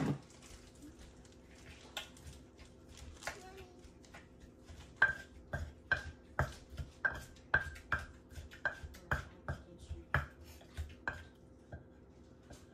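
Wooden pestle pounding in an earthenware mortar. A few scattered knocks, then sharp knocks with a short ring about two a second from about five seconds in, stopping near the end.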